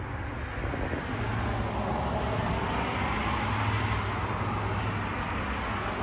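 Road traffic: a passing vehicle's rushing noise that swells about a second in and eases slightly near the end, over a low steady engine hum.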